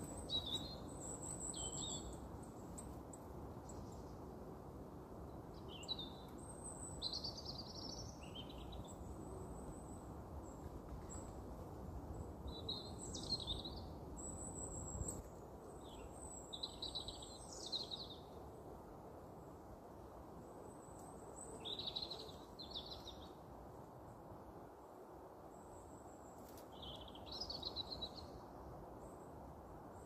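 Small songbirds singing short, high phrases every few seconds over a steady low background rumble.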